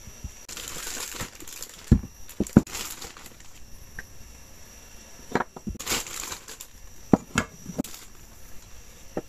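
Clear plastic packaging bags crinkling in several bursts as plastic anime figure pieces and a display stand are unwrapped and handled, with several sharp knocks as parts are set down.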